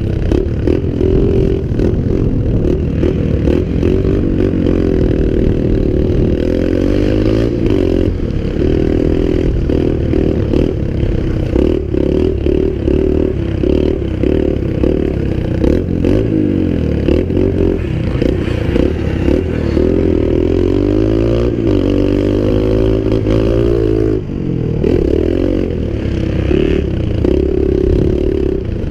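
A dirt bike's engine being ridden hard, its pitch rising and falling again and again as the throttle opens and closes and the rider shifts.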